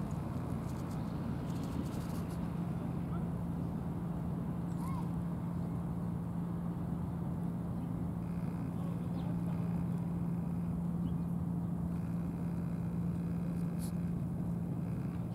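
Steady low outdoor background rumble with a constant low hum underneath, unchanging throughout, and a couple of faint short chirps a few seconds in.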